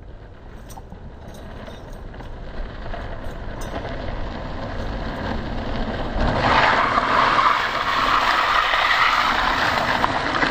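Longboard wheels rolling on asphalt, growing louder as the board comes closer; about six seconds in it turns into a loud, rough scraping as the rider drops into a hand-down slide, the wheels and his gloved hand sliding across the pavement.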